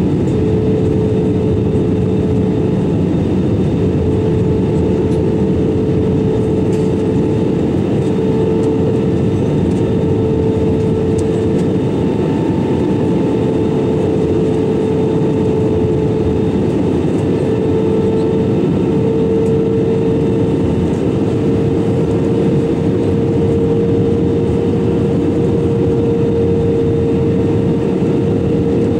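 Airbus A320-200 cabin noise in flight: a steady rush of engine and airflow noise with a humming engine tone that slowly creeps up in pitch.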